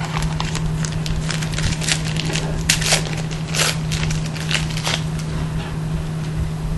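Foil trading card pack crinkling and crackling as it is handled and torn open.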